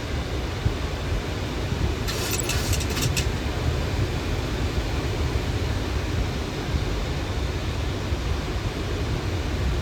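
Steady rumble and rush of a Boeing 737 flight deck in flight on approach, heaviest in the low end, with a short run of sharp clicks about two seconds in.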